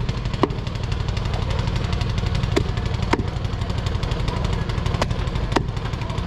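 A small engine running steadily with a fast, even low pulsing, with about five sharp clicks spread through it.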